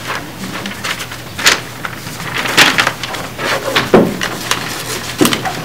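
Handling noise at a desk in a meeting room: scattered light knocks and rustles, with a duller thump about four seconds in, over a steady low hum.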